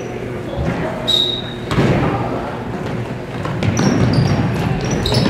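Spectators' chatter and calls echoing in a gymnasium during a basketball game, with a basketball bouncing on the hardwood court. Several short, high sneaker squeaks come about a second in and again near the end.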